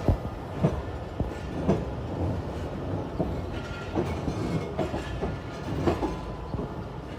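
Train wheels clacking over the track's rail joints as a train rolls slowly, with sharp clacks roughly once a second over a steady rumble.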